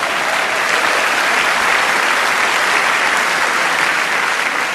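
Large live audience applauding, a dense, steady round of clapping that fades slightly near the end.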